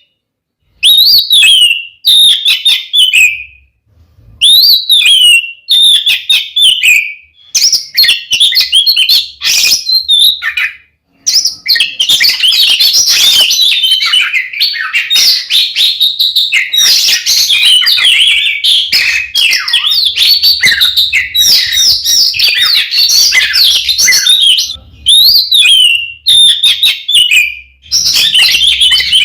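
Oriental magpie-robin (kacer) singing loudly in full, aggressive fighting song. It opens with short rising-and-falling whistled phrases separated by brief pauses, and from about twelve seconds in runs into a long unbroken stretch of rapid, varied notes before breaking back into separate phrases near the end.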